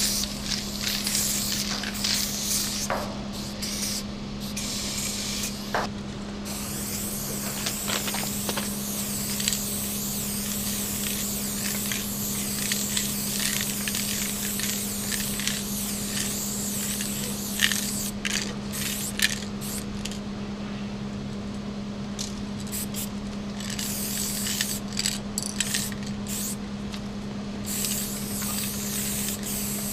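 Aerosol spray-paint can hissing as a graffiti tag is painted: short bursts, then one long spray of several seconds, then more short bursts near the end. A steady low hum runs underneath.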